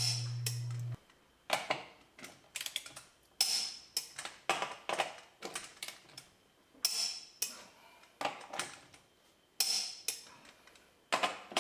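Torque wrench on a wheel's lug nuts: sharp metallic clicks and clacks about once a second as the wrench is seated on each nut and clicks at the set torque of 100 foot-pounds.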